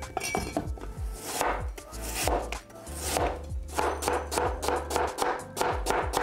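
Cleaver slicing a Chinese turnip (daikon) on a cutting board: a run of knocks of the blade through the root onto the board, coming faster in the second half.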